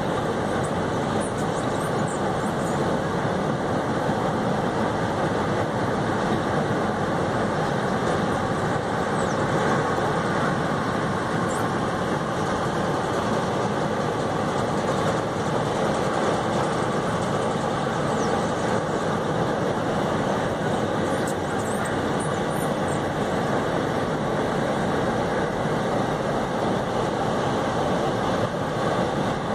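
Freight train's hopper wagons rolling steadily across a high concrete viaduct, a continuous even rumble of wheels on rail with no locomotive horn.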